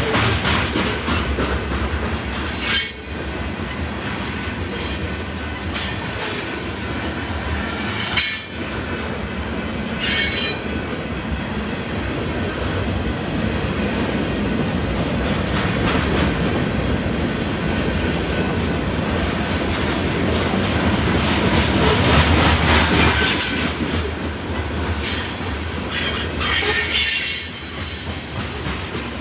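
Loaded grain train's freight cars rolling past, steel wheels running on the rails with a steady rumble, broken several times by brief high-pitched wheel squeals.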